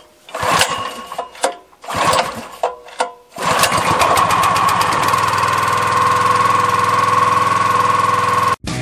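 Small gasoline engine of a log splitter being pull-started: several short bursts, then it catches about three seconds in and runs steadily. The sound cuts off suddenly near the end.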